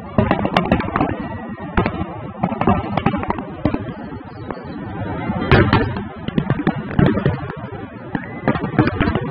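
Aerial fireworks bursting: a dense, uneven run of sharp bangs and crackles, with the heaviest bangs about half a second in, near the middle and about two seconds later.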